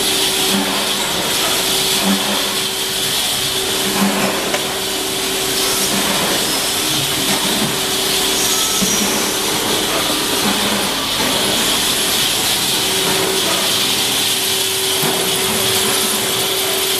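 Brass hinge production machinery running: a steady hum under a loud hiss, with a few irregular knocks, the sharpest about four seconds in.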